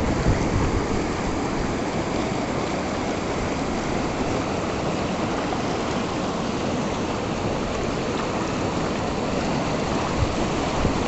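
Flowing river water, a steady rushing wash of noise.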